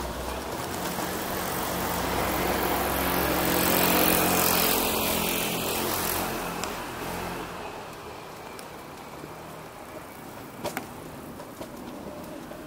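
A car passing by: engine and tyre noise build up to a peak about four seconds in, then fade away.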